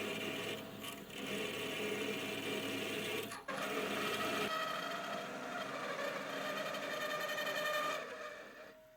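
Machine tool cutting metal: a steady motor whine mixed with cutting noise, changing abruptly about three and a half and four and a half seconds in, and fading out near the end.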